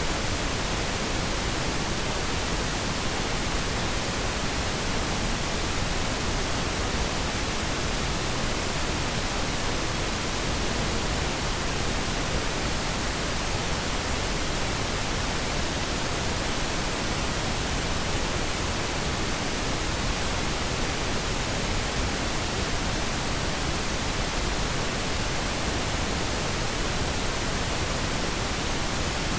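Pink noise test signal for audio calibration: a steady, even hiss across the whole range, unchanging in level.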